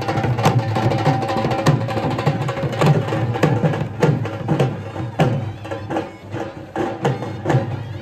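Traditional Indian music: drums beating a steady rhythm under a held, droning melody line.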